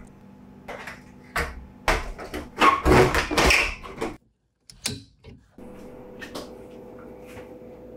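Clicks and knocks of fluorescent tubes and a plastic diffuser cover being handled and snapped into a ceiling light fixture. After a brief cut, a faint steady hum.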